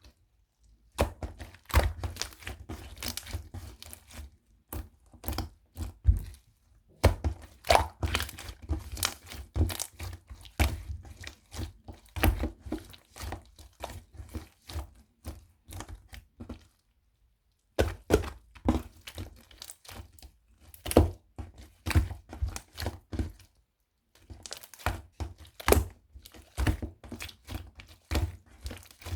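Beads clattering in quick runs of small sharp clicks and knocks, with two short pauses.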